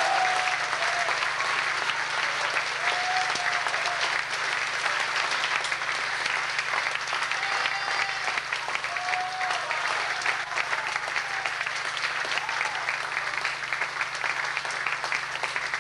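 Concert audience applauding, a dense steady clapping with a few short pitched calls rising above it, easing slightly near the end.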